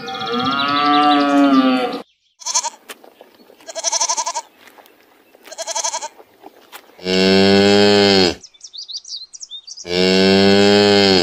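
A long bellowing call, then a goat bleating three times in short, quavering bleats, then a cow mooing twice in long, deep moos.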